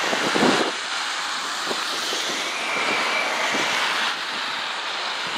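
Steady rushing wind noise buffeting the microphone, with a louder gust about half a second in.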